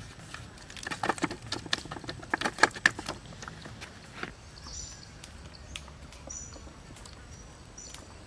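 Hands patting and pressing a raw chicken on a plastic tray, a quick run of taps over the first three seconds. Then a few short, high bird chirps.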